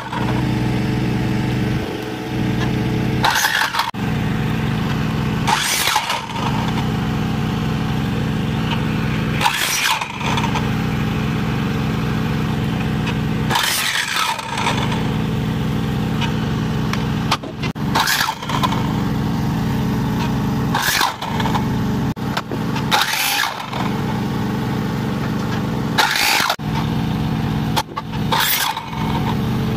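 Craftsman compound miter saw running and making about nine quick cuts through a cedar fence picket, one every two to four seconds. Each cut is a brief, higher-pitched burst of the blade biting the wood over the steady motor hum.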